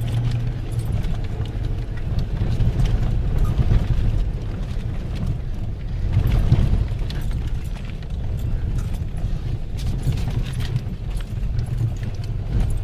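Off-road vehicle engine running low under load, with many scattered knocks and jolts as it lurches over rough ground.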